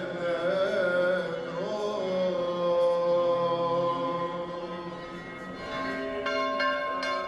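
Orthodox church chant: a singing voice bending and holding long notes over a steady low drone. About six seconds in, church bells start ringing in repeated strokes.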